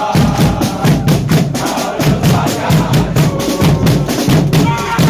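Football supporters' drums beating a fast, steady rhythm with heavy bass drum.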